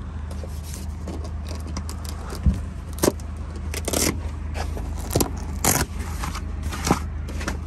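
Tent fabric of a camper van's pop-up roof being handled: irregular rustling and scraping, with sharper scrapes about 3, 4 and 6 seconds in, over a steady low hum.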